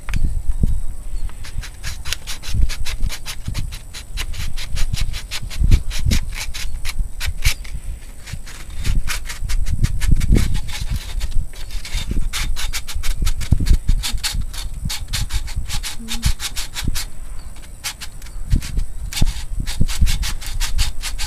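Sandpaper rubbing on the wooden body of a Pinewood Derby car in quick repeated strokes, a few a second, with irregular low bumps from handling.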